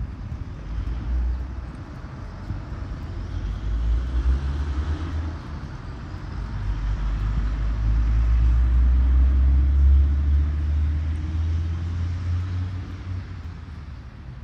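Road traffic passing on a city street: a low rumble that builds to its loudest about ten seconds in, then fades.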